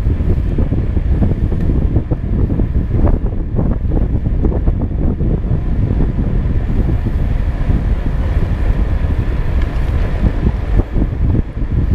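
Wind buffeting the microphone of a camera on a moving bicycle: a loud, steady, gusty low rumble.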